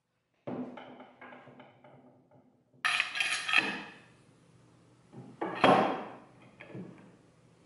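A steel pipe clamp being handled and set against a wooden tabletop. About half a second in comes a knock followed by a few light rattles. Loud metallic clanks come about three seconds in and again near six seconds, with lighter knocks after.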